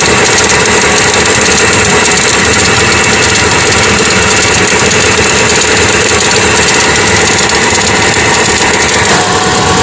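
Hyundai Atoz engine idling with a loud tek-tek ticking from the engine bay, which the owner traces to a dry fan belt.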